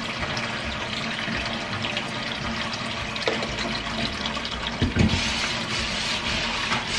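Kitchen faucet running into a shallow stainless steel pan of water, a steady splashing rush. A few knocks come about three and five seconds in as a metal spoon stirs citric acid into the water.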